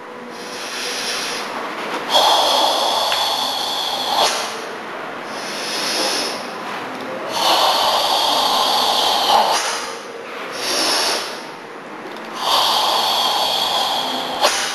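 A karateka's deep, forceful Tensho kata breathing. Three long, loud hissing exhales come about five seconds apart, with softer breaths between them.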